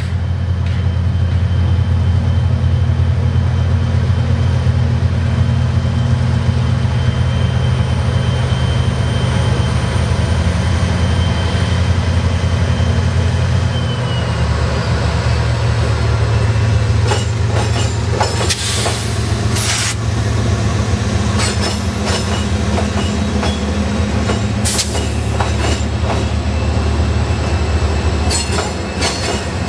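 Freight train's diesel locomotives rolling slowly past with a steady low engine drone that drops in pitch about halfway through as the lead unit goes by. A thin wheel squeal rings early on, and in the second half the wheels click and clatter over rail joints as the cars follow.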